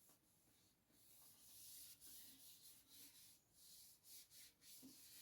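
Faint, irregular rubbing strokes: a vacuum cleaner part being wiped and scrubbed clean by hand.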